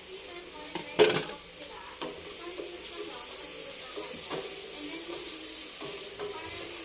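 Garlic and ginger sautéing in butter and oil in a pan, stirred with a utensil: one loud clank of utensil against pan about a second in, then a steady sizzle that grows louder about two seconds in, with light scraping from the stirring.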